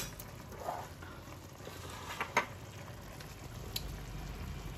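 Tomato sauce with capers and olives simmering in a pan while a wooden spoon stirs it, with a few light knocks against the pan, one sharp one right at the start.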